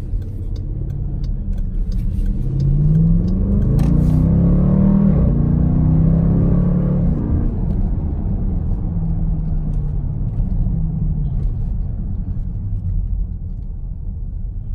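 Dodge Durango SRT's 392 Hemi V8 heard from inside the cabin over a steady road and tyre rumble. It accelerates from about two seconds in, its pitch climbing in steps as it pulls through the gears, then settles to a steadier, lower drone and eases off near the end.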